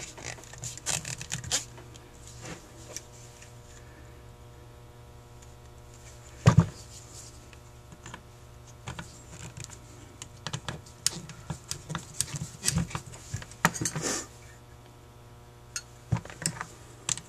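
Hand tools and a metal Carter YFA carburetor being handled while its screws are driven in: scattered clicks and light taps of the screwdriver and carburetor body, with one much louder knock about six and a half seconds in and a busier run of clicks near the end, over a faint steady hum.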